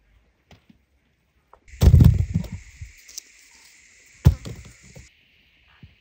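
Hands digging potatoes out of dry soil: scraping and dull thuds, with a heavy cluster of thumps about two seconds in and a single sharp thump a little past four seconds.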